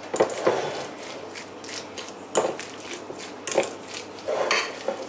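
Kitchen handling sounds from a glass baking dish of potato salad being dressed with mayonnaise: a handful of soft, irregularly spaced knocks and clicks.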